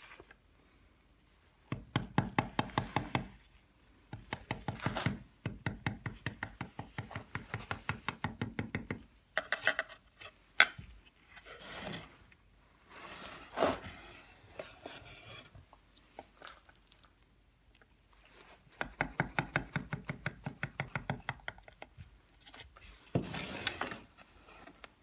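Mallet tapping a carving chisel in quick runs of light, rapid strokes, several seconds at a time with short pauses between, as the chisel chips detail into a carved relief.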